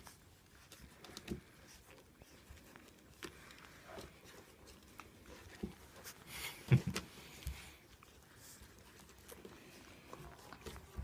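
Faint rustling and soft clicks as Siberian husky puppies nurse and fur is stroked by hand, with one louder thump a little before seven seconds in.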